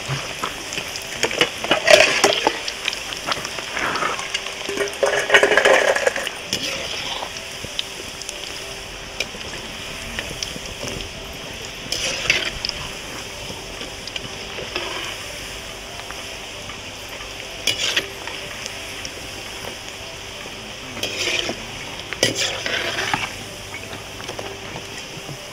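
Onion pakodi deep-frying slowly in a kadai of hot oil over a low flame, a steady sizzle. Every few seconds a metal slotted spoon stirs and scrapes against the pan in short clattering spells.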